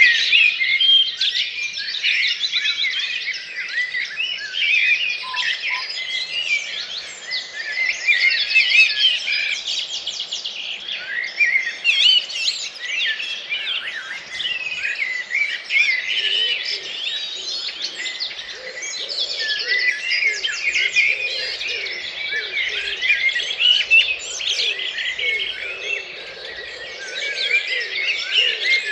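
Dawn chorus: many wild birds singing at once, their songs overlapping densely with rapid trills and chirps, and lower warbling notes joining in around the middle.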